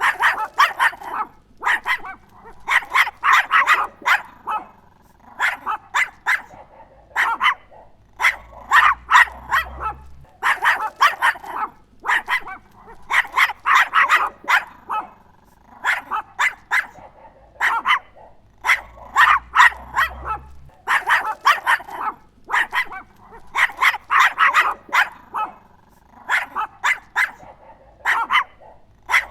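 Chihuahua barking: high, sharp yaps fired in quick volleys of several barks, with short pauses between volleys.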